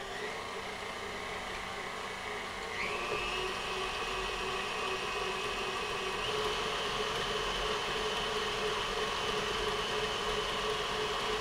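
Electric tilt-head stand mixer running steadily, its flat beater creaming softened butter and sugar in a metal bowl. The motor's whine steps up in pitch about three seconds in.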